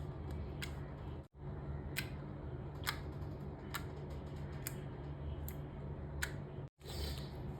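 Homemade clear glue-and-water slime being squeezed and stretched by hand, giving sharp little clicks and pops about once a second over a steady low hum. The sound drops out completely twice, briefly.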